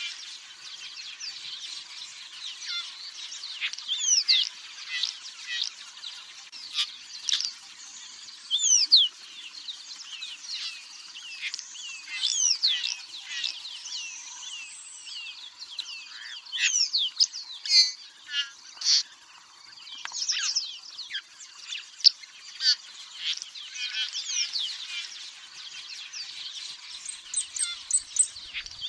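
Several small songbirds chirping and singing at once, a busy chorus of quick high chirps and short trills, many of them sweeping downward in pitch.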